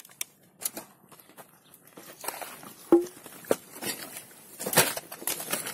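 Footsteps crunching and knocking irregularly over earthquake rubble of broken concrete, wood and sheet metal, with a sharp knock about three seconds in.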